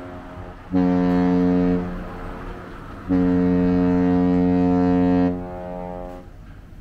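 Low, deep ship's horn sounding a short blast and then a long blast of about two seconds, each with a short fading echo.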